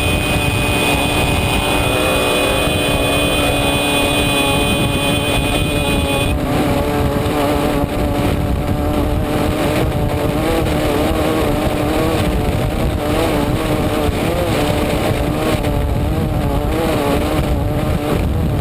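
Off-road race car engine running hard at speed, heard from inside the car over a constant heavy rumble of wind and terrain. The engine pitch wavers up and down as the driver accelerates and lifts. For about the first six seconds a steady high-pitched tone sounds over it, then stops suddenly.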